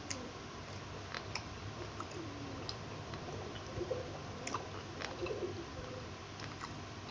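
A man chewing a mouthful of takoyaki, with scattered small mouth clicks and smacks over a faint steady hum.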